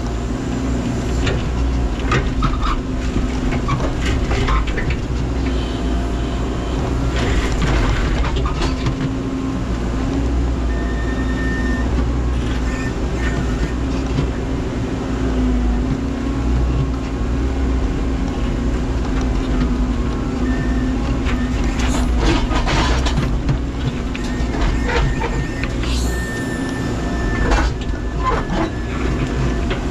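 Menzi Muck spider excavator's diesel engine running steadily under load, with repeated knocks and clatters of stone against the bucket and a few short high squeals.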